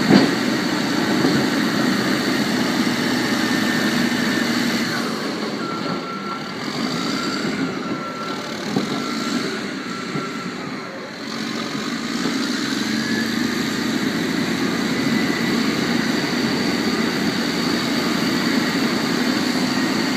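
Bulldozer engine running steadily. It drops quieter for several seconds in the middle, while a faint steady high tone sounds, then comes back up.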